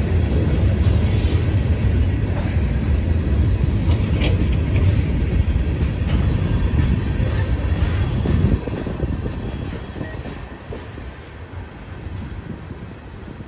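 Train rolling past, its wheels on the rails making a loud, steady rumble. About eight and a half seconds in the rumble drops sharply, then fades away.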